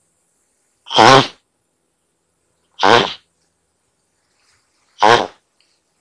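Snake-necked turtle calling: three short calls about two seconds apart, each with a wavering pitch.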